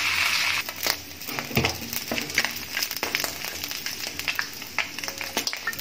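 Hot oil left in a wok after frying fish head and potatoes: a steady sizzle that drops sharply about half a second in, then scattered sharp crackles and clicks of the bubbling oil and spatula over a faint hiss.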